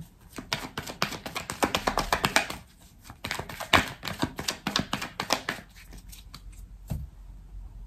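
Oracle Belline cards being shuffled and handled: quick runs of light clicks and taps, with a short pause about two and a half seconds in, thinning out near the end.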